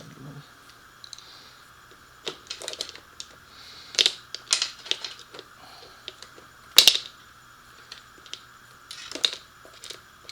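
Irregular sharp clicks and metal clinks of hand tools and small parts being handled during motorcycle disassembly, with two louder clacks about four and seven seconds in.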